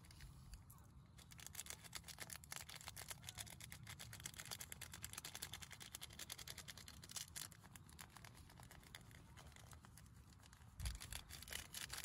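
Dry, crisp topping being crushed and crumbled by hand into a bowl of porridge: a fast, fine crackling and crinkling. It eases off about two-thirds of the way through, then starts again after a soft thump near the end.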